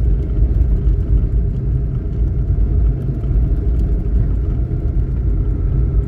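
Lada Niva driving along a snow-covered road, heard from inside the cabin: a steady low rumble of engine and tyres.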